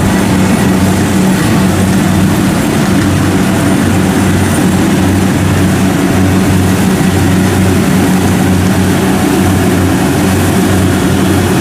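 Kubota DC70 combine harvester's four-cylinder diesel engine running steadily under load as it harvests rice, a constant low hum.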